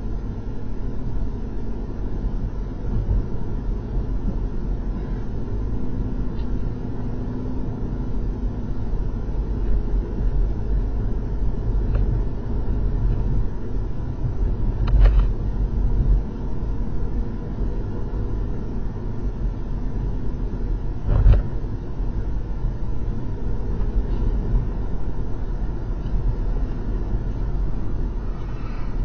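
Road and engine noise inside a car's cabin as it drives at about 30 to 40 mph: a steady low rumble. Two short thumps stand out, about fifteen and twenty-one seconds in.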